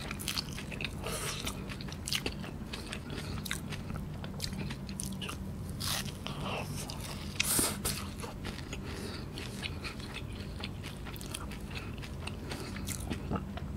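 Close-up eating sounds of cheese kunafa: the crisp shredded-pastry crust crunching and crackling under bites and chewing, with a louder crunch about seven and a half seconds in.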